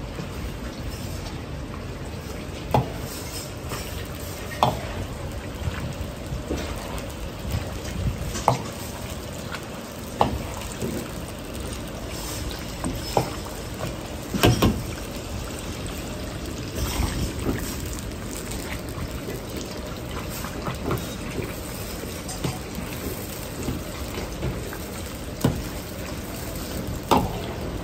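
Sliced pork belly sizzling and bubbling in hot oil in a carbon-steel wok, with a steady gas wok burner running underneath. A metal ladle stirs it and knocks against the wok now and then, about a dozen sharp clinks spread through the stretch.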